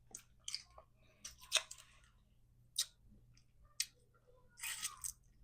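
Crab leg shells being cracked and snapped open: a run of sharp, irregular crackling clicks about a second apart, with a longer crunchy crackle near the end.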